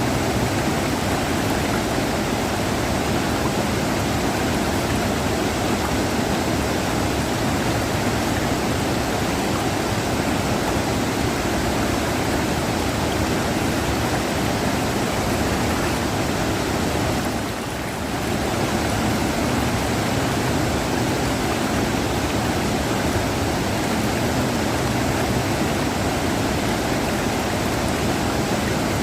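A river rushing: a steady, even rush of flowing water, with a brief small dip in level a little past halfway.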